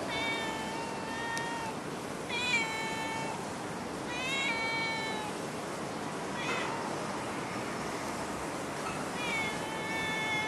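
A tabby-and-white cat meowing five times, mostly long meows of about a second each with a short one in the middle, over a steady background hiss.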